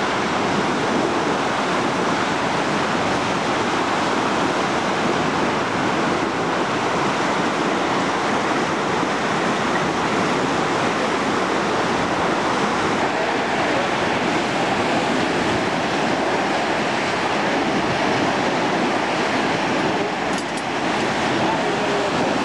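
Steady, even rush of seawater pushed along the hull of a surfaced submarine under way, mixed with wind.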